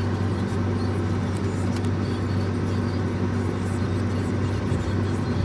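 Union Pacific freight train's diesel locomotives running: a steady low rumble and hum that does not change through the stretch.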